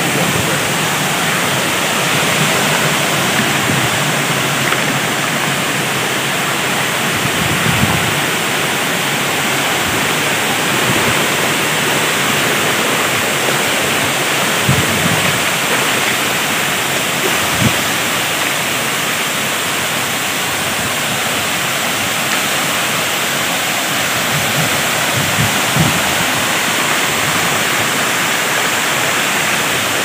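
Waterfall and water spilling over rocks: a steady, loud rush that does not let up. A few short low bumps break through it here and there.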